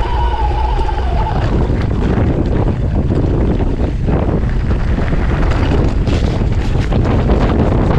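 Strong gusting wind buffeting the camera microphone, mixed with the rattle and clatter of a mountain bike rolling fast downhill over loose gravel. The clatter gets denser and harsher in the last couple of seconds. A steady high-pitched whine fades out about a second in.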